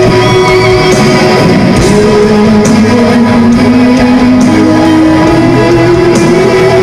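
Live rock band played at full volume: distorted electric guitars holding long lead notes that bend and step up in pitch, over drums with cymbal hits every second or two.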